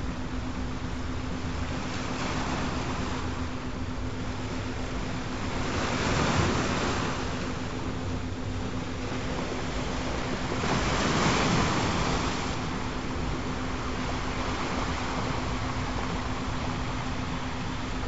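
Ocean surf: a steady wash of waves that swells louder twice, about six and eleven seconds in, as waves break, with a steady low tone held underneath.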